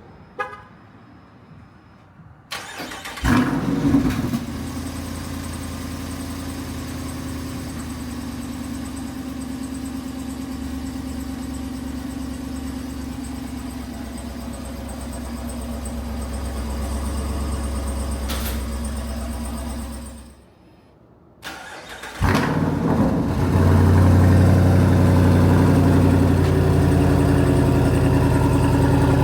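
Two cold starts of a Jeep Wrangler 392's 6.4-litre Hemi V8. Each time a short crank catches into a brief rev flare and settles to a steady cold idle. The second start and idle are clearly louder than the first.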